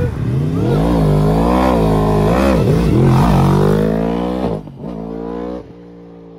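Motorcycle engine revved in quick blips, then pulling hard under acceleration with its pitch climbing steadily. Near the end it sounds quieter and farther off, as a steady drone.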